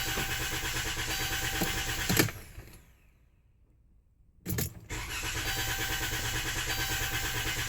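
Starter cranking the Chrysler Town & Country minivan's engine, which does not catch. The cranking stops with a click about two seconds in and is silent for about two seconds. It then resumes with another click, still without starting: the van is hard to start and needs many tries.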